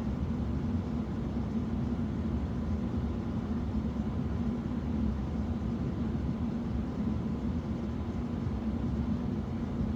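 Steady low machine hum and rumble, unchanging throughout, with a pronounced low drone.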